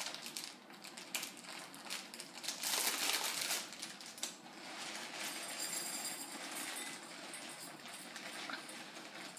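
Plastic snack bag crinkling as it is handled and opened. Chocolate chips are then poured from it into a bowl, the small hard pieces rattling as they drop in.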